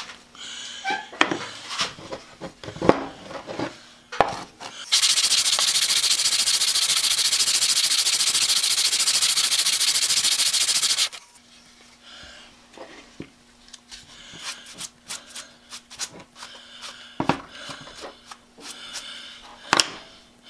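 The beech-wood sole of a Stanley No. 23 transitional plane is rubbed on 80-grit sandpaper to flatten it, giving an even, loud rasping for about six seconds in the middle. Light knocks and handling clicks come before and after as the plane is set down and moved.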